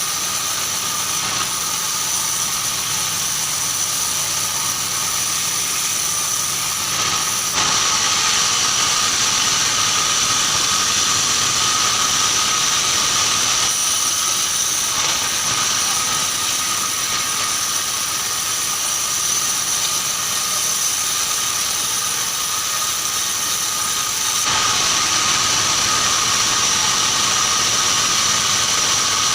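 Band sawmill running while sawing keranji timber, a steady machine noise with a high whine. It gets louder about seven seconds in and again near the end.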